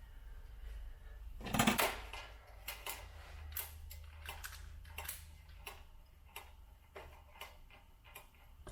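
Small clicks, taps and light clatter of metal guitar hardware and tools being handled, irregular throughout, with one louder clatter about a second and a half in.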